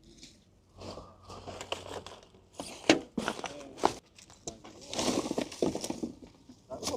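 Rubbish being handled: irregular rustling and crinkling with sharp knocks, loudest in a few clatters partway through.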